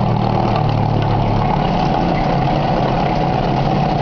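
Glass-grinding machine running: the motor-driven rotating plate and grinding wheels give a steady mechanical hum and grinding noise. The coolant stream runs over the work, and the low hum shifts slightly about a second and a half in.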